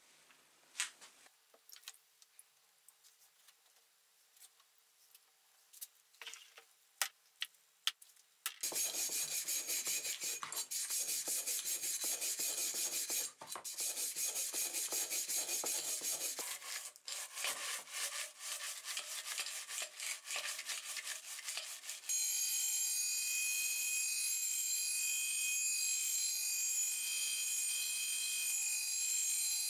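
A few small clicks and knocks of a plastic tub and wet metal parts being handled. From about eight seconds in comes rapid, continuous scrubbing of a metal tube in soapy water, with brief pauses. About 22 seconds in a bench grinder's wire wheel starts brushing rust off the steel tube, a steady whirring scrape over the motor's hum.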